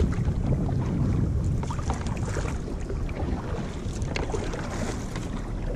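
Kayak being paddled across the sea: short water splashes and drips from the paddle strokes over a steady low rumble of wind on the microphone.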